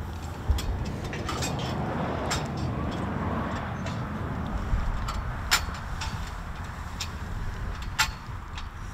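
Steady outdoor background rumble with several sharp clicks on top, the loudest about half a second, five and a half seconds and eight seconds in.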